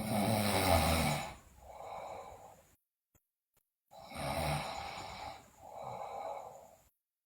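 A sleeping person snoring, two breaths in all. Each breath is a loud snore followed by a softer breath, with a pause of about a second before the second snore.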